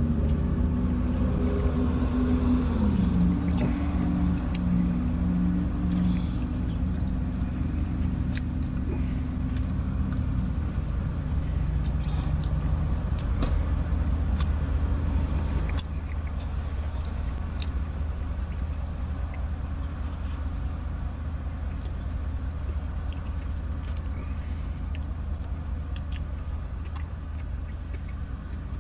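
Steady low rumble of an idling car engine heard from inside the cabin, with a humming tone over it that drops in pitch about three seconds in and dies away about twelve seconds in. Faint scattered clicks of chewing.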